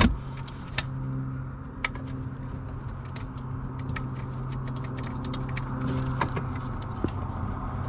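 Scattered light clicks and ticks of small metal parts being handled as a bracket bolt is started by hand, over a steady low hum.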